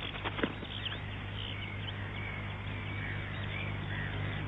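Little gulls calling: scattered short calls over a steady low hum.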